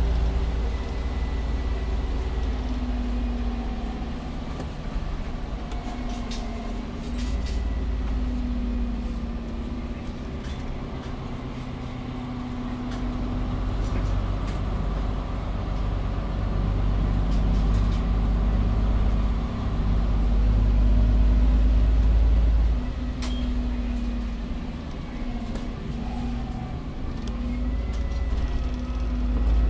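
SOR NB12 city bus heard from inside during a ride: the engine and drive rumble swells and eases several times as the bus pulls away and slows, with a whine that comes and goes and occasional rattles and clicks.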